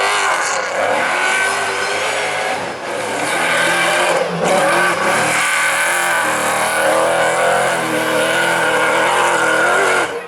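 Prodrive Toyota Hilux Dakar rally car's engine revving hard and loud, its pitch rising and falling over and over as it accelerates and backs off. There are short lifts in the sound about three and four seconds in.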